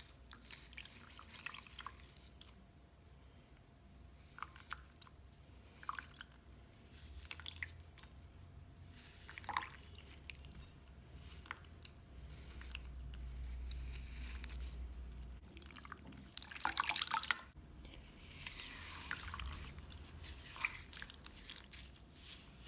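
Wet slime being handled and squished by hand, with scattered sticky clicks and small pops and a louder crackling squish about three-quarters of the way through.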